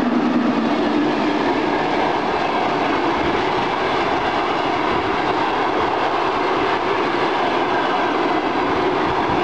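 Passenger train hauled by an EP2K electric locomotive passing close by: the steady rumble and rattle of the coaches' wheels on the rails. The locomotive's low hum fades in the first moment as the coaches follow.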